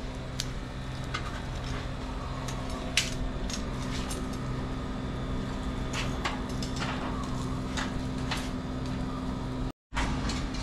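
Metal tongs clinking against a stainless steel bowl and the barbecue grill grate: a few sharp, separate clinks spread over several seconds, over a steady low hum.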